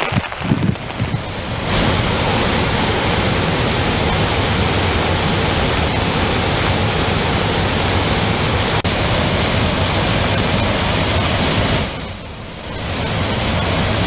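Steady, loud rush of floodwater pouring over the Pochera waterfall, swollen by heavy rain. The sound dips briefly about twelve seconds in, then picks up again.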